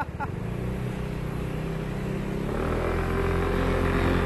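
Motor scooter engine running as the scooter rides along the road. About two and a half seconds in, the engine note rises and gets louder as it picks up speed.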